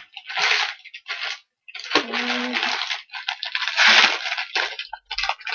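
Plastic packaging crinkling and rustling as it is handled, in several bursts with short pauses between them.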